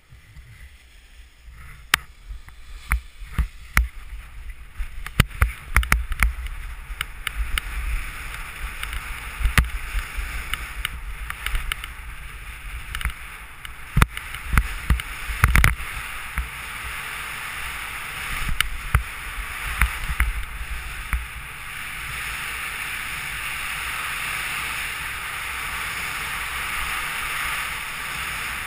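Wind rushing over the microphone during a fast speedriding run on skis, with frequent knocks and scrapes of the skis clattering over hard, bumpy snow for most of the first twenty seconds. After about 22 s the knocks stop and the rush of wind becomes smooth and steady.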